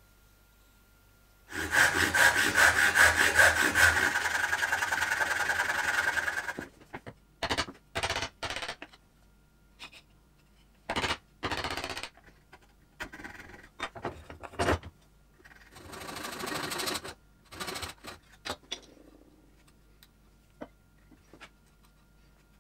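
Hand-tool work on wood: about five seconds of quick, even strokes of a blade cutting wood, then a series of short separate scrapes and a few light ticks as a bench chisel pares the bridle joint.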